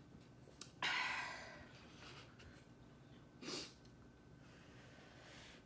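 A person slurping instant noodles in soup: two noisy slurps, the first about a second in and louder, fading over most of a second, the second shorter at about three and a half seconds.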